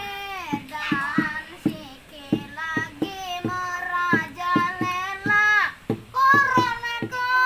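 A boy singing, with a steady knocking beat tapped on a bucket as a makeshift drum.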